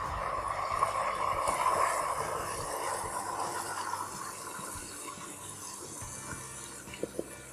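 Marinated chicken tipped into hot oil in a wok, sizzling, strongest in the first few seconds and then easing as the pan fills. A few light knocks near the end.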